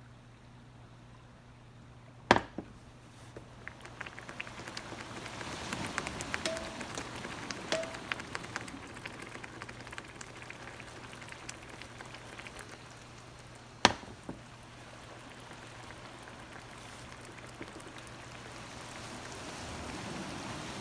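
Marinara sauce simmering in a pan on an electric coil burner, bubbling and popping with many small crackles that grow livelier about four seconds in, over a low steady hum. Two sharp knocks, one about two seconds in and one about fourteen seconds in, are the loudest sounds.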